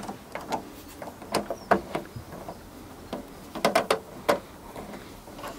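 Irregular clicks and light taps from working a screw by hand into the plastic end of an LED batten light fitting, with a quick run of clicks a little under four seconds in.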